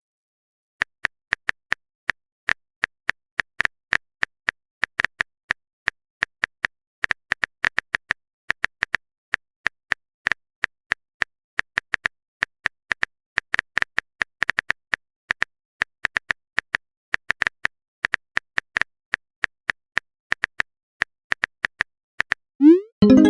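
Phone keyboard typing sound effect: a long run of short, sharp clicks at an uneven pace, several a second. Near the end a brief rising sound cuts in as music starts.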